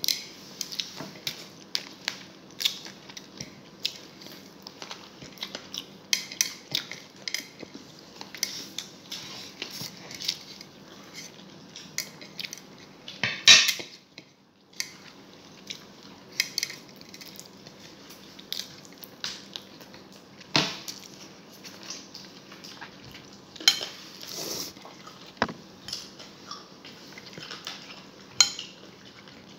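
Eating adobo and rice by hand from a plate: scattered light clicks and scrapes of fingers gathering food against the plate, mixed with chewing and mouth sounds, and a few louder knocks, the loudest about halfway through.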